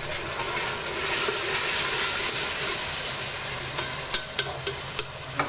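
Onion-tomato masala in hot ghee sizzling with a steady hiss as a little water is added, while a steel ladle stirs it in a metal pot. The hiss swells about a second in. A few sharp clicks of the ladle against the pot come near the end.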